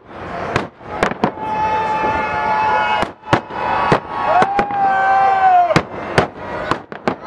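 Fireworks salute: shells bursting in about ten sharp bangs, some in quick pairs, with voices from the watching crowd and two long, high held tones between the bangs.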